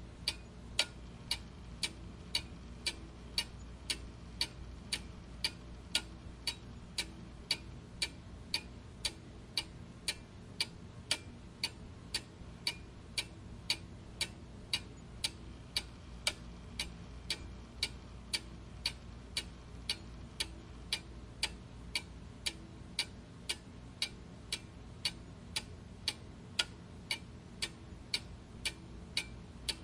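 Clock ticking steadily in an even tick-tock, about two ticks a second, over a faint steady low hum.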